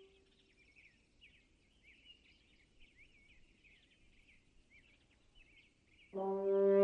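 A held French horn note dies away, then many small birds chirp faintly and quickly. About six seconds in, the French horn comes back in loudly on a low note.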